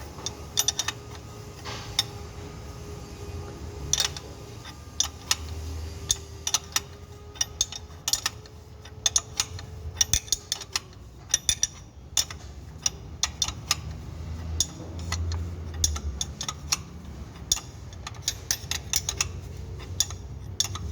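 Irregular sharp metallic clicks and clinks of hand tools working on a Suzuki flywheel as its pilot bearing is drawn out with a puller, over a low background rumble. A faint steady hum fades out about halfway through.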